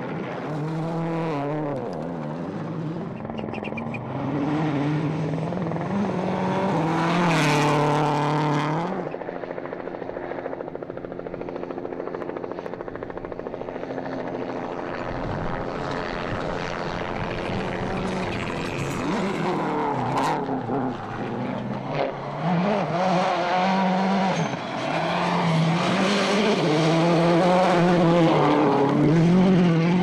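Rally car's turbocharged four-cylinder engine at high revs, its pitch climbing and dropping again and again as it runs through the gears. There is a sharp crack about twenty seconds in.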